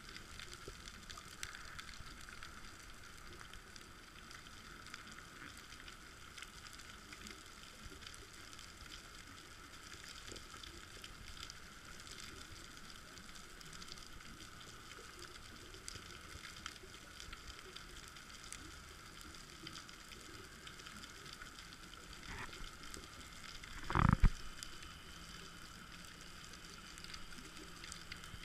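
Underwater ambient sound recorded through an action camera: a steady fine crackle and hiss, with one loud knock near the end.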